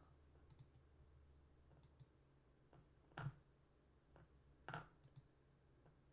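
Near silence with a low room hum and a few faint, short clicks, the clearest about three seconds in and just before five seconds.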